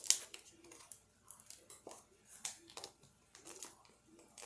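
Irregular crackles and rustles of kitchen handling at the stove, with a sharp crack right at the start.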